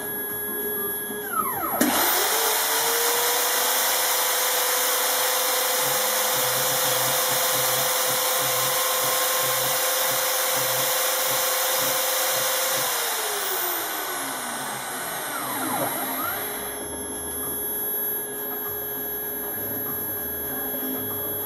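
Spindle motor of a multi-function CNC machine spinning up with a rising whine about two seconds in and running at a steady speed. It winds down with a falling pitch near the end, leaving a quieter steady hum.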